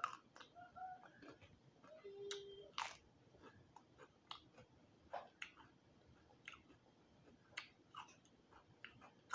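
Faint close-up chewing of crispy roasted quail, with scattered small crunches and wet mouth clicks at an uneven pace.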